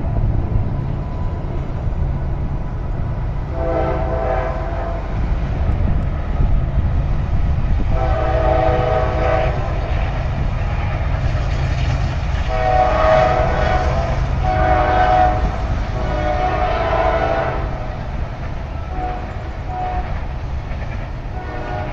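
CSX coal train passing, its diesel locomotive horn sounding a series of long blasts and then short ones over the steady low rumble of the locomotives and the rolling coal cars.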